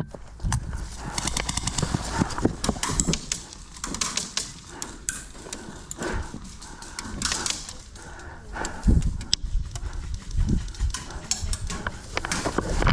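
Footsteps of a player moving on hard ground, with gear knocking and rattling: irregular sharp clicks and knocks, with heavier thuds about nine and ten and a half seconds in.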